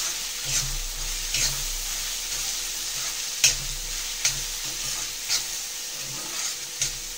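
Chopped onions sizzling in hot oil in a black iron kadhai on full flame, being fried until golden. A steel spatula stirs them, scraping against the pan about six times at uneven intervals, the sharpest scrape about three and a half seconds in.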